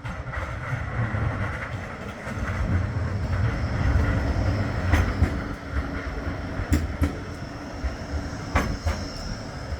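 Bombardier Flexity 2 tram running on street track: a heavy low rumble with a few sharp wheel clicks over rail joints, and a faint high wheel squeal in the second half.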